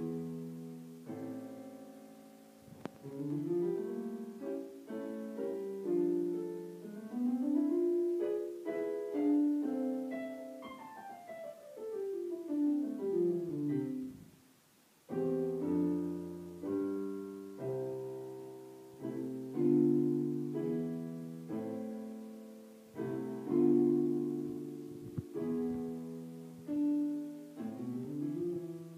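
Solo piano piece played on a digital stage piano: chords under a melody, with runs of falling notes about halfway through, a brief pause, then full chords again.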